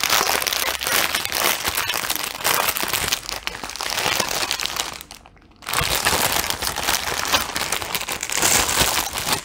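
Clear plastic wrapping crinkling and rustling as it is pulled open and off a bundle of small bagged diamond-painting drills, with many short crackles. It stops for about half a second roughly five seconds in, then carries on.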